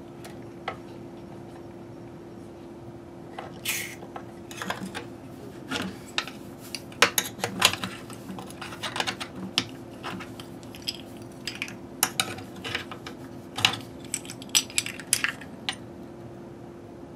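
A short hiss of contact-cleaner spray, about four seconds in, aimed at the amplifier's scratchy volume pots. It is followed by a run of small metal clicks and clinks as knobs and a nut driver are handled on the front panel, over a steady low hum.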